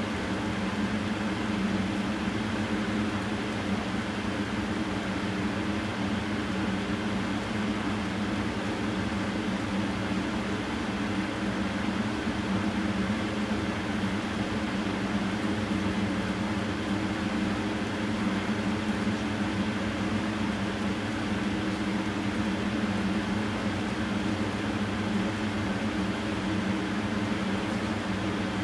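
Steady machine hum and whir, with a low drone that does not change.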